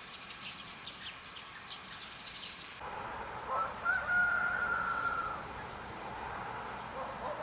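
A rooster crowing: one long call, loudest in its held middle note, starting about three seconds in. Before it, small birds chirp faintly.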